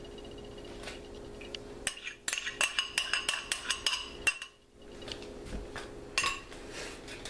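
Glass measuring cup clinking against a glass baking dish while the flour slurry is poured out, a quick run of sharp clinks in the middle and a couple more near the end.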